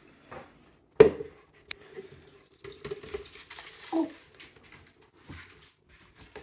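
Kitchen handling sounds: a sharp knock about a second in, then quieter clatter and water-like noises as batter ingredients are handled and poured.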